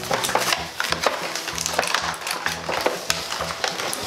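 Plastic packaging and cardboard being handled and unwrapped, with many quick crackles and rustles as toy playset boxes are opened by hand.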